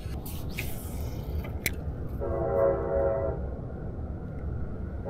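A horn sounds one steady blast of a little over a second, several held tones together, about two seconds in, over a low steady rumble. A few light clicks come before it.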